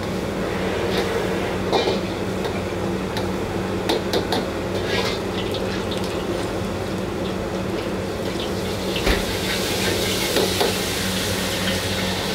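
Metal ladle clinking and scraping in a wok of simmering sauce, over a steady low kitchen hum; a louder hiss comes in about nine and a half seconds in.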